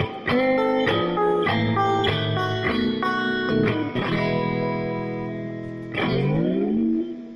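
Background music: guitar, plucked notes and chords, with one chord left ringing for about two seconds and a note sliding in pitch near the end.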